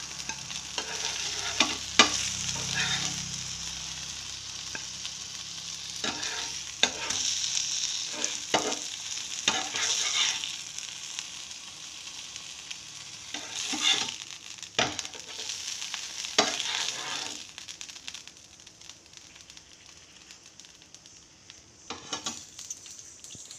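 Indian mackerel frying in coconut oil on a flat tawa, a steady sizzle, broken by sharp clicks and scrapes of a steel spatula as the fried fish is lifted off. The sizzle dies down over the last few seconds.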